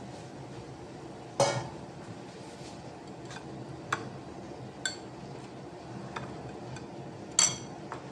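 Steel spoon clinking against a bowl while stirring jelly powder into just-poured boiling water to dissolve it. A handful of sharp, ringing clinks, the loudest about a second and a half in and again near the end, over a steady low hum in the background.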